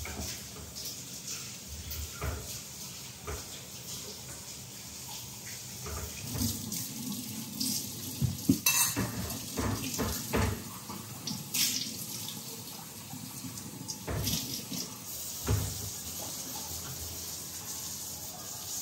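Water running from a tap into a sink, with dishes and pots clattering against each other; the loudest clatter comes a little under halfway through.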